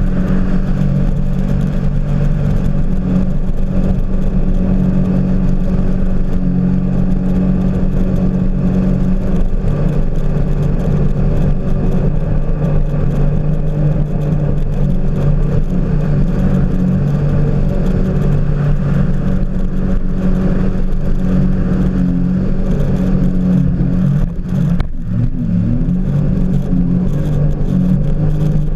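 Jet ski engine running steadily at speed, over the rush of water and spray. About 25 seconds in, the engine note briefly drops and then climbs back.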